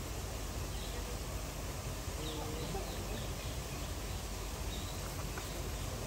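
Steady outdoor background noise with a low rumble, and a few faint short bird chirps.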